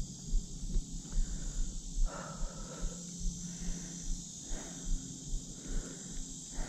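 Insects buzzing steadily at a high pitch, under a hiker's regular low thumps of footsteps on rock, with hard breathing twice.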